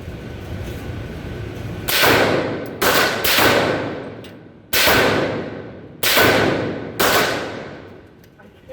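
Suppressed Bushmaster ACR rifle in .300 Blackout firing six shots at an uneven pace, each shot ringing out in a long trailing echo.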